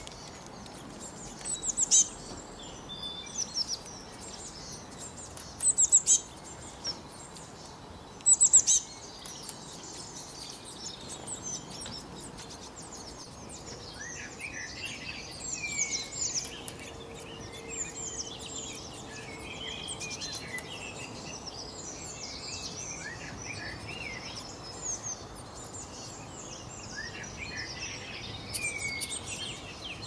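Several small songbirds chirping and singing over a steady hiss of background noise. Three loud bursts of quick, high notes come in the first nine seconds, and a busier chorus of sweeping notes follows from about halfway on.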